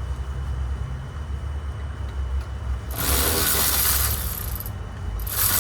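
Hand ratchet clicking as it is worked on a bolt of the front brake and hub assembly, in two bursts starting about three seconds in, over a low steady rumble.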